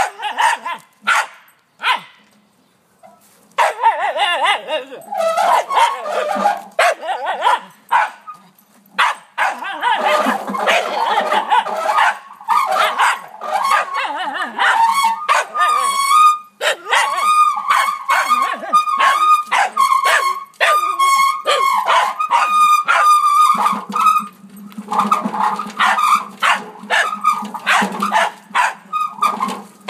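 Small dog barking repeatedly and excitedly at a wheelbarrow, in quick volleys with a brief pause a couple of seconds in. A steady high-pitched tone sounds along with the barks for several seconds past the middle.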